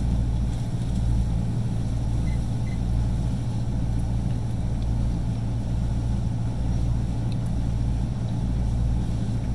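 Motorboat engine running steadily at low cruising speed, a low, even drone with no change in pitch.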